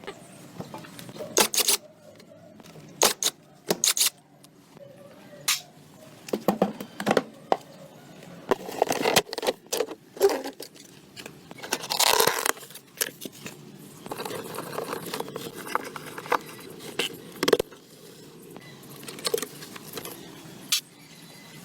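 Irregular clicks, clinks and knocks of tools and metal parts being handled during hands-on repair work, with a couple of longer scraping or rattling stretches.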